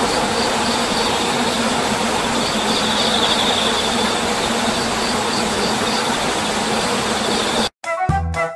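A steady rushing noise with faint, repeated high chirps over it. Near the end it cuts off abruptly and music with a steady beat starts.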